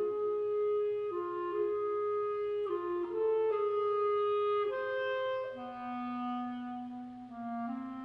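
Unaccompanied clarinet playing a slow line of long held notes, dropping to a lower held note about halfway through.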